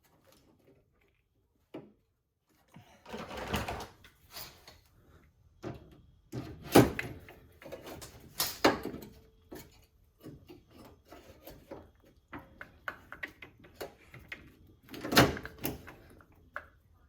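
A hand-held pop rivet gun setting steel rivets in a VW hood latch: irregular metal clicks and clacks as the handles are worked, with a few sharp, loud snaps. Nearly silent for the first few seconds.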